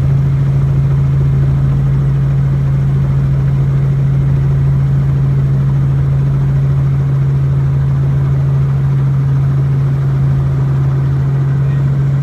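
Robinson R44 helicopter's six-cylinder Lycoming piston engine and rotors running, heard from inside the cabin as a loud, steady drone.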